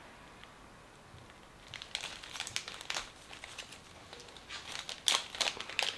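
Packaging crinkling and rustling in short irregular stretches as it is handled, starting about two seconds in and loudest about five seconds in.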